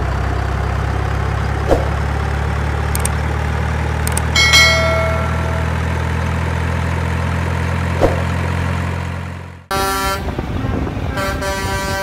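Heavy truck engine running steadily, with one short horn toot about four seconds in. Near the end it cuts to street sound, with cement mixer truck horns tooting.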